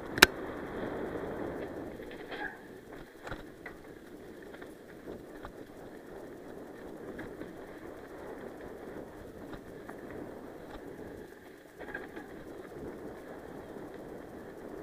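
Mountain bike rolling fast over a dry, sandy dirt trail: a steady rumble of tyres and rushing air, with scattered knocks and rattles from bumps. A sharp knock just after the start is the loudest.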